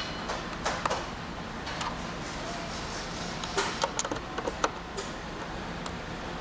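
A 3/8 nut driver tightening the nuts on a relay board: scattered light clicks and taps, bunched about a second in and again around four seconds in, over a steady low hum.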